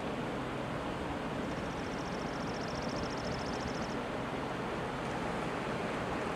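Steady rushing noise of a shallow mountain river. A faint, high, rapid trill rides on top for about two seconds in the middle.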